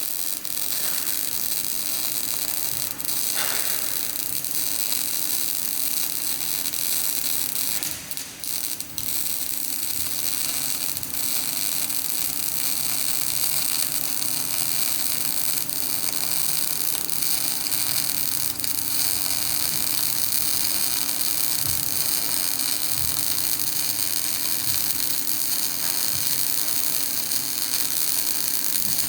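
Welding arc burning: a steady hiss with a low hum underneath, briefly interrupted about eight seconds in before running on.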